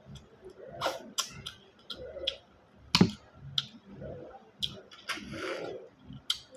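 Close-up mouth and hand sounds of freshwater snails (bisukol) being eaten from the shell: scattered sharp clicks and smacks from the shells and lips, and a short sucking slurp about five seconds in as the meat is drawn out.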